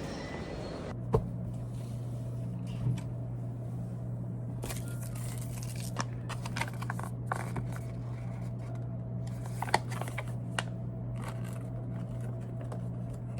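Scattered light clicks and short rustles of small objects being handled, over a steady low electrical hum that starts about a second in.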